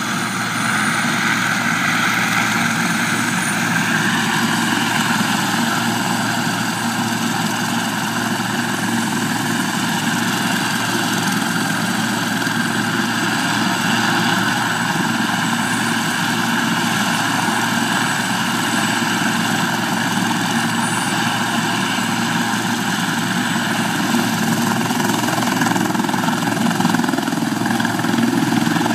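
Ambulance helicopter running on the ground with its rotors turning: a steady turbine whine over the rotor noise. It grows a little louder near the end as power is brought up for take-off.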